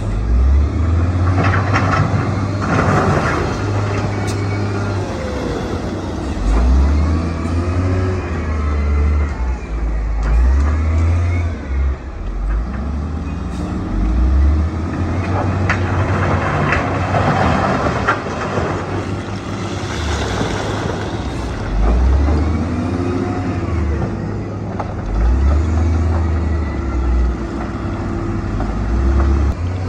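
Heavy diesel construction machinery working, the deep engine note rising and falling with load, with a few sharp metallic clanks.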